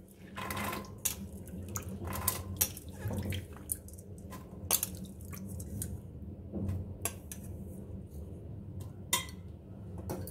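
Soaked white peas scooped by hand out of water in a steel bowl and dropped into a steel pressure cooker: irregular clinks and patters on the metal, with dripping water.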